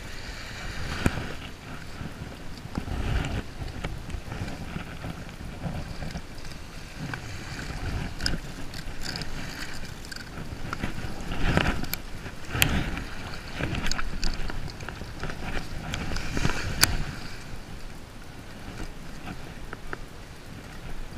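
Wind buffeting the microphone in uneven low rumbles, with the rustle of a jacket sleeve and a few sharp clicks as hands handle a caught skate on the sand.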